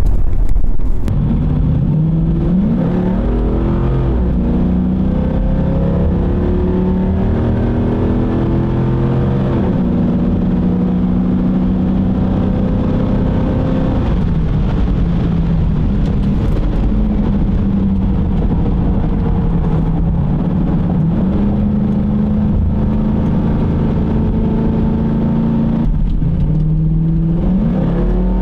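The Jeep Grand Cherokee's 4.7-litre V8, just fitted with an ATI Super Damper and a 25% underdrive pulley, heard from inside the cabin on a test drive. It rises in pitch as it accelerates, drops back at the upshifts, and runs steady at cruise in between.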